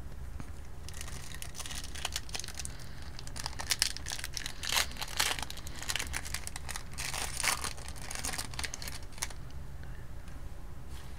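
Wrapper of a Tim Hortons Upper Deck hockey card pack crinkling and tearing as it is opened by hand, a run of crackly rustles that stops about nine seconds in.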